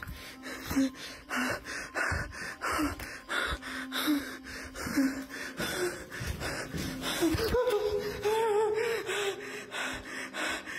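A man breathing hard in quick, panicked gasps, one breath after another. About two-thirds of the way through, a drawn-out wavering vocal sound joins the breaths.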